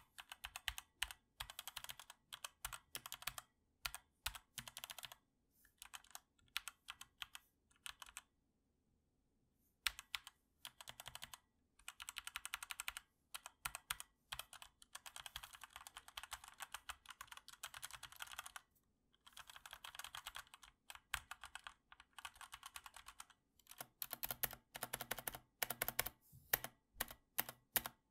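Typing on a Redragon K568R mechanical keyboard with red linear switches: fairly quiet runs of keystrokes, pausing for about a second and a half a third of the way in, then faster runs, with somewhat louder strokes near the end. The switches have a spring ping (ringing spring noise) that the reviewer finds noticeable, put down to low switch quality.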